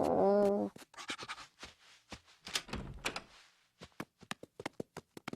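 A short cartoon-voice "Oh", then scattered soft clicks and rustles, and in the second half a rapid even run of light taps, about four or five a second: cartoon footstep sound effects.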